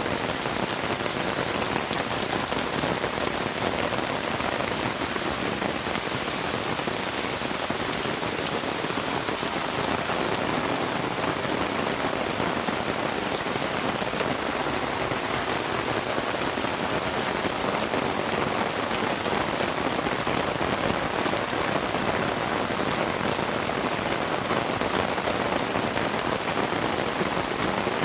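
Heavy rain falling steadily, a dense even hiss of drops on the ground.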